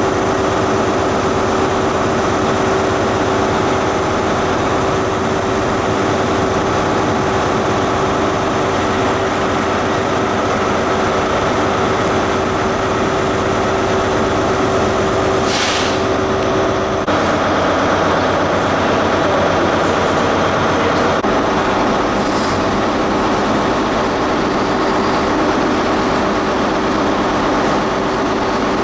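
ScotRail High Speed Train moving through the platform, its diesel power car engine running with a steady hum and a brief hiss about halfway through. The sound changes abruptly a little past halfway.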